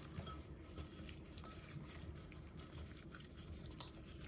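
Faint wet squishing and soft clicks of gloved hands mixing pieces of fish in an oily spice marinade in a bowl.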